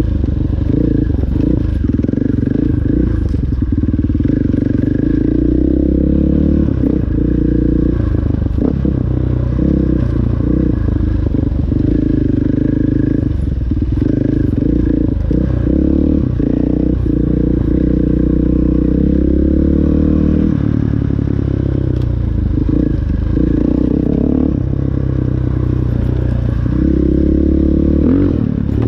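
KTM 500 enduro dirt bike's single-cylinder four-stroke engine running under way, its pitch rising and falling with the throttle. Scattered knocks and rattles from the bike going over bumps on the dirt trail.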